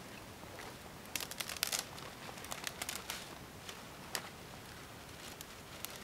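Dry twigs being handled and broken by hand, several clusters of sharp crackles and snaps with quieter rustling between them.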